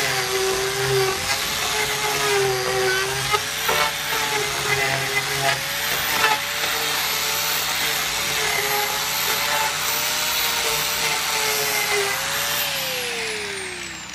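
Angle grinder fitted with an Arbortech TurboPlane blade, shaving the surface of a rough-sawn board: a steady motor whine over the hiss of the blade cutting wood, with a few knocks along the way. Near the end the grinder is switched off and its whine falls in pitch as it spins down.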